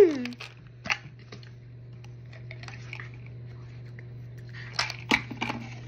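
Small clicks and rustles of hands handling objects, the sharpest pair about five seconds in, over a steady low hum. At the very start a brief vocal sound falls in pitch and trails off.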